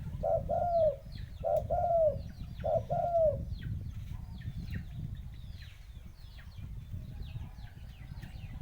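A dove cooing: three short phrases of two arched notes each, in the first three and a half seconds. After that, high, quick falling chirps of small birds carry on, over a steady low rumble.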